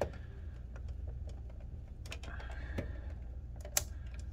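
Knife blade being worked into the seam at the top of an Iomega Mac Companion external hard drive case to pry it open: scattered small clicks and scrapes, with one sharper click near the end.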